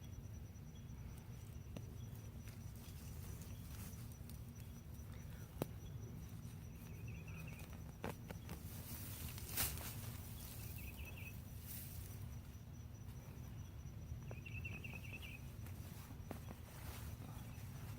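Digging in garden soil: a few sharp knocks and scrapes, the loudest about ten seconds in, over a steady low rumble. Insects chirp in short rapid trills three times, with a faint steady high whine throughout.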